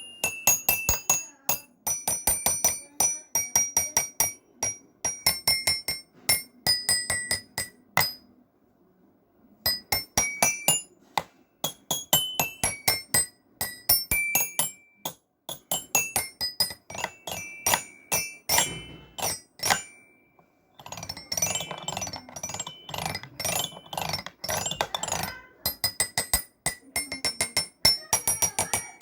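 Music of high, bell-like mallet notes, like a glockenspiel or music box, struck in quick melodic runs. It stops briefly about eight seconds in.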